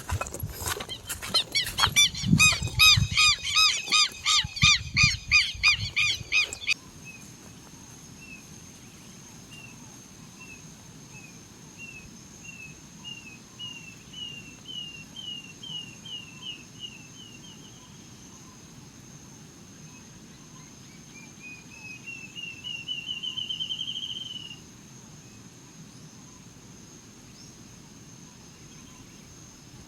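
Birds calling in the countryside. A loud, rapid series of calls, about four a second, stops abruptly about seven seconds in. Then one bird gives two runs of short whistled notes that climb in pitch and speed up, over a steady high insect drone.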